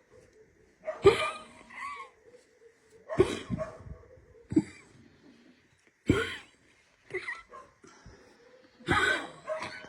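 An elderly dog coughing in repeated short bouts, about six of them a second or two apart. The cough is lingering while she is on antibiotics.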